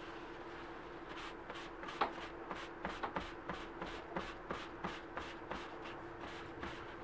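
Folded paper towel rubbing and dabbing over freshly dyed leather on a paper-towel-covered table, in quick soft strokes about three a second that start about a second in. A steady low hum runs underneath.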